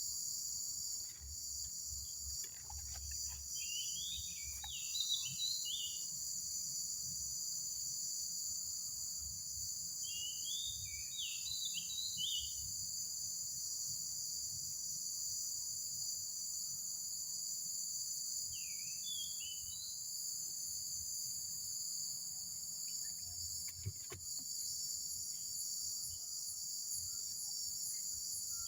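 A steady, high-pitched insect chorus with three short bursts of high chirping calls, about four, ten and nineteen seconds in.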